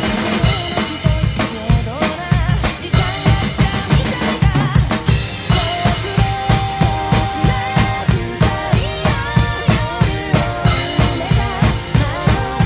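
Acoustic drum kit played along to a rock backing track in an instrumental passage: a fast, driving beat of kick and snare hits under a melodic lead line, which holds one long note about halfway through.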